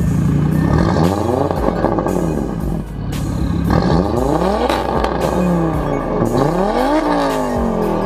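Big-turbo, tuned Audi A5 2.0T turbocharged four-cylinder being revved while standing still. The exhaust note climbs and drops several times in a row, with a brief lull about three seconds in and the highest rev near the end.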